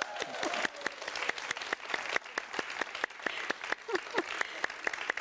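Studio audience and guests applauding, a dense, steady clapping, with a few voices calling out over it near the start and again about four seconds in.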